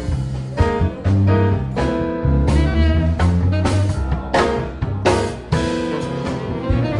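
Blues-style band music: guitar over low bass notes and a drum kit keeping a steady beat.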